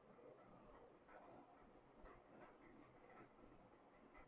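Faint marker pen squeaking and scratching across a whiteboard in short, irregular strokes as words are written.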